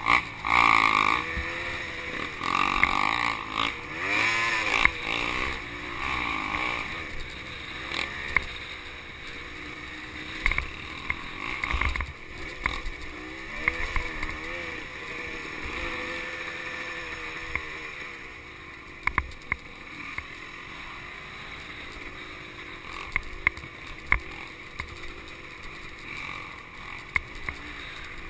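Honda CRM250 single-cylinder two-stroke dirt bike engine riding a trail, its revs rising and falling again and again through the first several seconds and once more midway, then running steadier. Occasional sharp knocks sound throughout.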